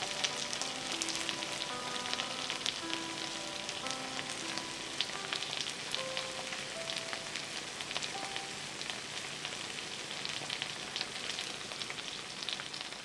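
Spicy stir-fried chicken feet and melted cheese sizzling and crackling steadily in a hot skillet. Faint, soft music plays underneath.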